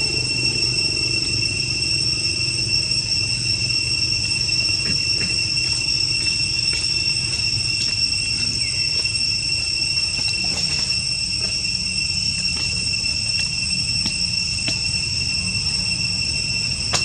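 Steady, high-pitched drone of insects, held at two pitches without a break, over a low steady rumble, with a few faint ticks.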